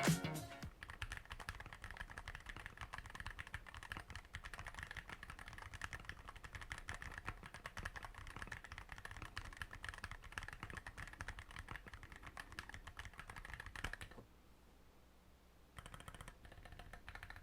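Fast typing on an Ajazz AC067 mechanical keyboard with Kailh Cheese 45 g switches: a dense, irregular run of key clacks that stops about fourteen seconds in and resumes more faintly near the end. Music cuts out within the first second.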